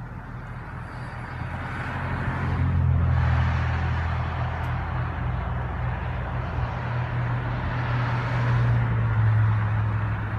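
Antique farm engine running with a low, steady note that grows louder over the first three seconds and swells again near the end.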